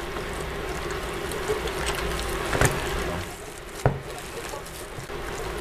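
A gloved hand kneading raw minced meat with eggs and soaked bread rolls in a bowl: wet squelching and squishing, with two sharp clicks around the middle.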